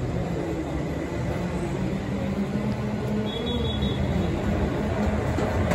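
A pack of racing karts' engines running together at low, steady revs as the field rolls up in formation before the start, growing louder as it comes nearer.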